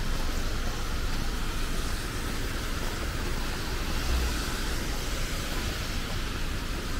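Steady city street noise on a rainy day: a hiss of rain and traffic on wet roads over a low traffic rumble, swelling slightly about four seconds in as a vehicle goes by.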